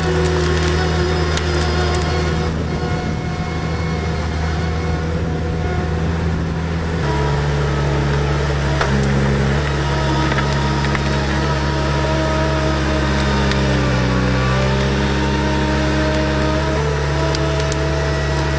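The Kubota engine of an Avant compact loader runs steadily under hydraulic load while its ripper tears out a tree stump. A few sharp cracks of roots and wood come in the first couple of seconds. The engine note shifts about seven seconds in and sags briefly before recovering about two-thirds of the way through, as it labours.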